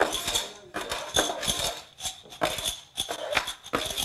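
Small hard pieces clicking and rattling against a wooden tabletop in repeated short bursts.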